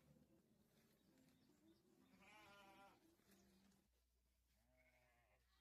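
Sheep bleating quietly: a wavering bleat about two seconds in and a second, shorter one near the end.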